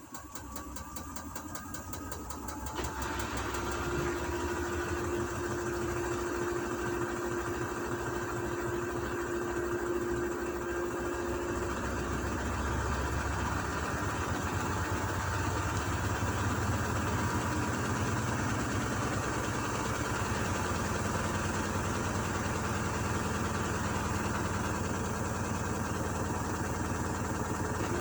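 Gorenje washing machine running: the motor speeds up over the first few seconds with a faint rising whine, then runs steadily at speed with a low hum and vibration.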